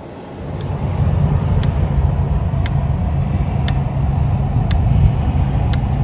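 Norcold RV absorption refrigerator's propane spark igniter clicking about once a second, six times, as it tries to light the burner: the clicking that shows the igniter is working. Under it runs a steady low rumble that builds up in the first second.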